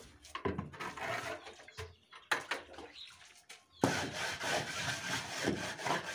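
Wooden hand float scraping in repeated strokes over a freshly poured, still-damp concrete floor, smoothing the surface. The rubbing drops out for a moment about two seconds in, broken by a sharp knock, then picks up again and runs steadily from about four seconds in.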